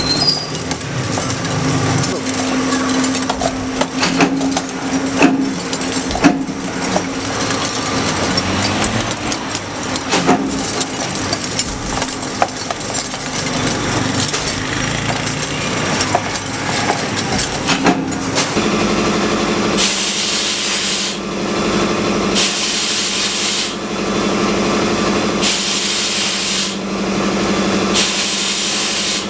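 Stainless steel teaspoons clattering as they tumble in a motor-driven rotating drum, many small metal clicks over a steady motor hum. About eighteen seconds in this gives way to a machine's steady hum with bursts of hissing spray that come and go every second or two.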